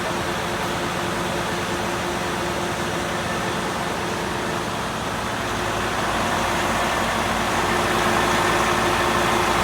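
An engine running steadily, growing a little louder from about six seconds in.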